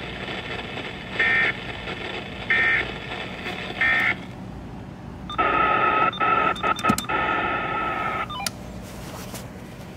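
Weather radio receiver sounding three short, evenly spaced data bursts: the SAME end-of-message code that closes a severe thunderstorm warning broadcast. About five seconds in comes a longer buzzing tone of about three seconds, broken by several brief dropouts, over steady radio hiss.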